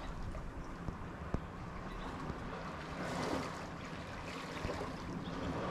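Wind and sea noise at the shoreline: a steady low rumble with a soft swell about three seconds in, and one faint click just over a second in.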